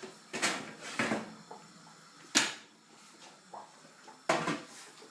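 Oven door and metal baking tray being handled: a few separate knocks and clatters, the sharpest about two and a half seconds in and another cluster near the end.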